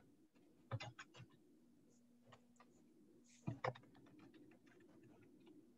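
Faint computer keyboard typing: a few quick key clicks about a second in and another short run about three and a half seconds in.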